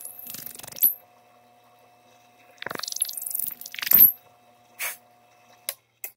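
Drill press running a counterbore bit into the neck-mounting holes of a wooden guitar neck: two bursts of cutting about two and a half seconds apart, with a faint steady motor hum underneath. The hum stops near the end, followed by a few short clicks.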